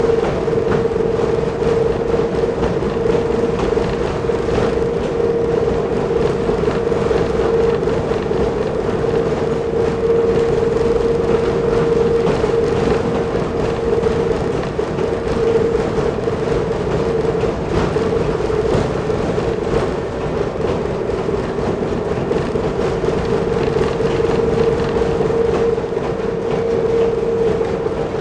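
Kiha 10 diesel railbus of the Nanbu Jūkan Railway running along the line at steady speed, its engine and drive giving a constant hum over the running noise, with a few faint clicks from the rail joints.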